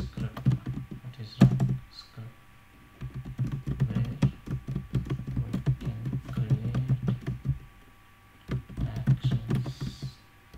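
Typing on a computer keyboard: quick runs of key clicks, with a pause of about a second near the end before the typing starts again.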